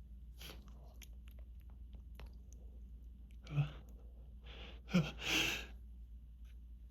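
A person's breathing and small nose and mouth sounds in the build-up to a hay-fever sneeze: faint clicks and sniffs, a short catching breath about three and a half seconds in, then a sharper catch and a longer hissing inhale about five seconds in.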